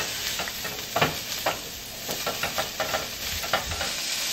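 Sliced peppers and onions sizzling in hot olive oil over high heat in a stainless steel skillet. A utensil stirs them, scraping and knocking against the pan now and then, most sharply about a second in.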